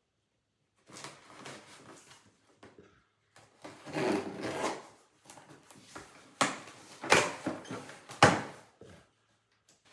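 A cardboard product box being handled and opened: irregular scraping and rustling, with three sharp, louder knocks in the second half.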